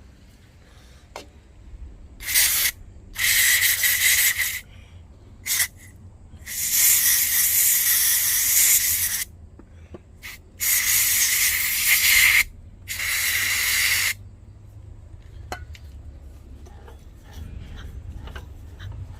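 Pressurised spray hissing in about seven bursts, from a split second to nearly three seconds long, with a few light clicks between them.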